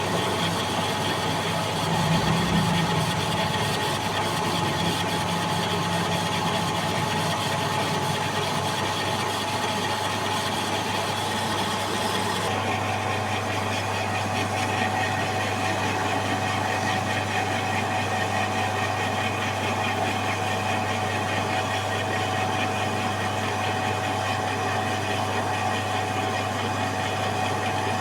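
A machine tool running steadily: a constant hum with a whining tone over a hiss. Its sound shifts abruptly about twelve seconds in.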